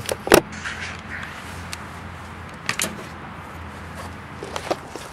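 A few sharp knocks and clicks from handling and moving around the tractor: a loud one about a third of a second in, more near the middle and near the end. A steady low hum runs underneath.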